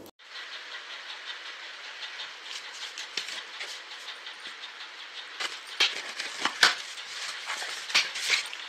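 A cardboard shipping box being opened by hand: packing tape peeled and torn with a run of light ticking, then louder rips and scrapes about halfway through as the cardboard flaps are pulled open.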